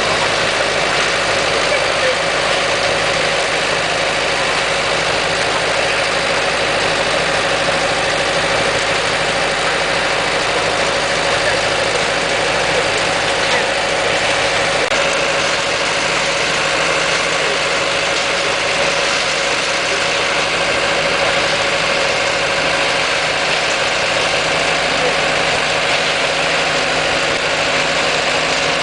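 Harvesting machinery engine running steadily at constant speed, with a steady whine over the engine noise and no changes in pace.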